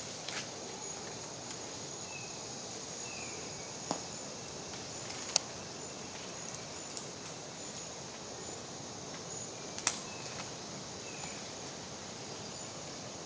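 Tropical forest ambience: a steady high insect drone, with two pairs of short falling chirps and a few sharp clicks or snaps spread through it.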